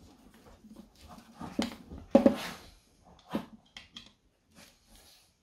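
A dog barking: three short barks, the loudest about two seconds in. Faint small clicks of a screwdriver turning a screw into a metal distributor housing.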